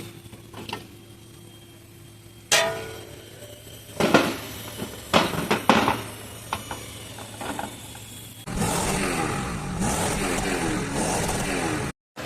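Scattered metallic clanks and knocks of hand tools working in an engine bay, then from about two-thirds through a steady engine running, with a brief gap near the end.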